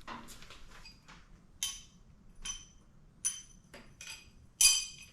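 Loose metal engine parts or tools clinking against each other, about five sharp clinks roughly a second apart, each ringing briefly, the loudest near the end.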